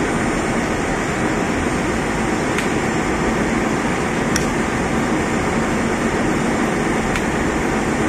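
Air-horn solenoid valve switched on and off on 110 volts, its plunger clicking faintly about four times: a sign that the valve works properly again. A steady loud machinery noise runs underneath.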